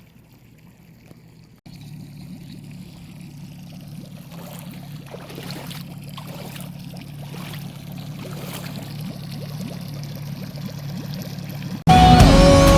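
Boat outboard motor running steadily with water rushing and splashing around the hull, growing gradually louder. Loud music cuts in near the end.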